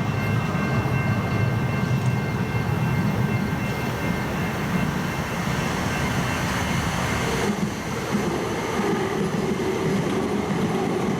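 Steady low rumble of a passing vehicle, with thin high whining tones over it that stop about six and a half seconds in; the sound shifts a little near eight seconds.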